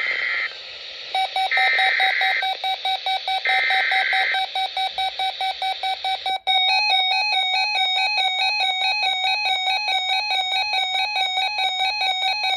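Emergency Alert System SAME data bursts from a NOAA Weather Radio broadcast: three short, harsh digital bursts. About a second in, the weather radios' alert alarm starts, a fast, steady beeping. About halfway through, a second alarm pattern of alternating high and low tones joins the beeping.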